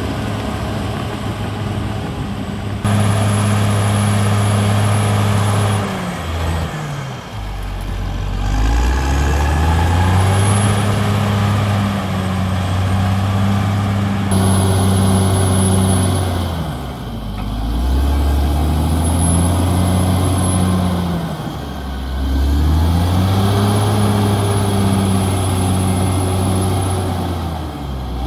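Caterpillar D6R XL bulldozer's diesel engine working, its revs sagging and climbing back several times as the load changes, with a faint high whine rising and falling along with the engine.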